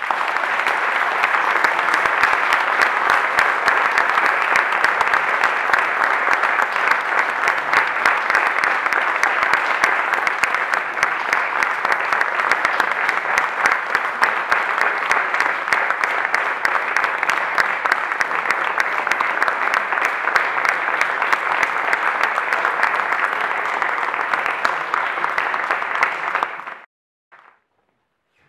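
Audience applauding steadily with dense clapping, stopping abruptly near the end.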